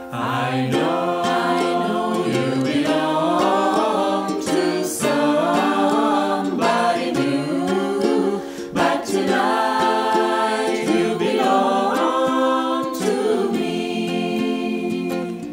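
Mixed adult choir of men's and women's voices singing a slow song together, accompanied by a strummed ukulele.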